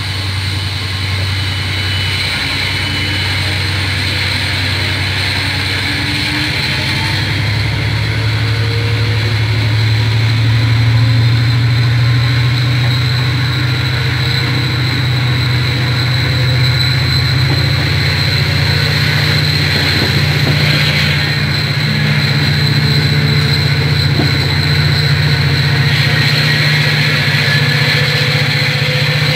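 Diesel engine of a passenger train heard from inside the carriage, working steadily under power as the train gathers speed, with a steady high whine above the engine note. The engine note grows louder about a third of the way in and its pitch climbs slowly.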